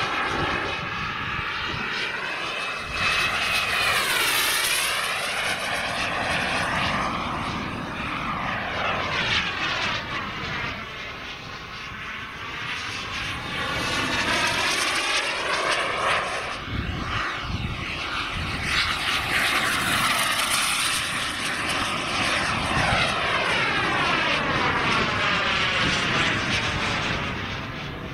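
Wren 160K Pro model jet turbine of a CARF Classic Lightning RC jet in flight. The jet noise swells and fades as it flies past, with a sweeping, phasing hiss on each pass. A short high whine comes about three seconds in, and the sound dips quieter around twelve seconds before growing loud again.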